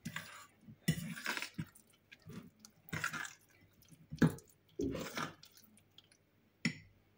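Thick tuna fritter batter being stirred and folded with a metal utensil in a glass bowl: wet squelching strokes in irregular bursts, with a couple of sharper clicks.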